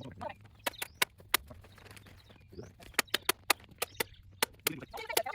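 Staple gun firing staples through plastic sheeting into the greenhouse's wooden frame: about a dozen sharp snaps at irregular intervals, several of them in quick runs.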